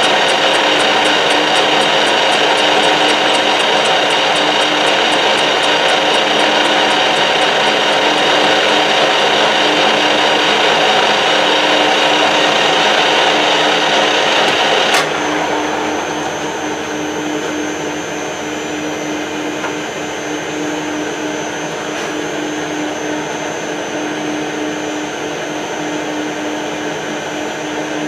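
Metal lathe running, its spindle turning a workpiece on a mandrel under a light turning cut, a steady machine hum with fine rapid ticking. About halfway there is a sharp click and the sound drops to a quieter steady running hum.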